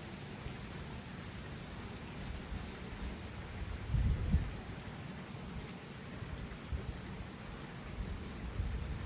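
Steady rainfall pattering on surfaces, with a brief low rumble about four seconds in.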